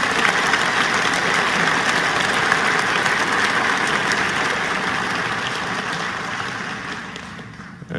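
Large audience applauding, a dense patter of many hands clapping that dies away near the end.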